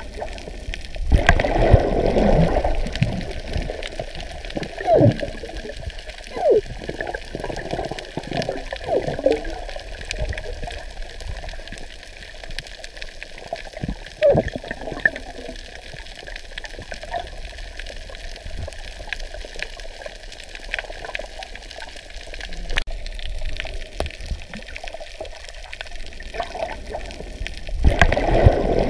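Muffled underwater sound of water moving around the camera, with bubbling and gurgling now and then; it is loudest about a second in and again near the end.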